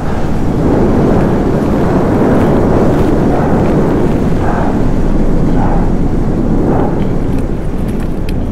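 Strong wind buffeting the camera microphone on an open snow face: a loud, steady, low rumble.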